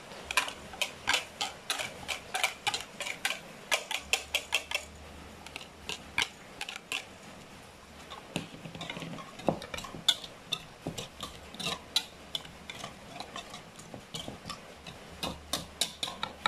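Metal wire whisk beating a runny egg mixture in a plastic bowl, the wires clicking against the bowl at about four clicks a second. The clicking is fast for the first few seconds, slows and thins out in the middle, and picks up again near the end.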